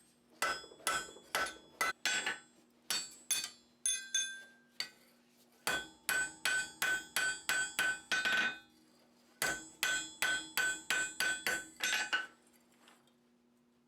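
Blacksmith's hand hammer forging a hot iron bar on an anvil: runs of ringing blows, about two to three a second, with two short pauses, stopping near the end.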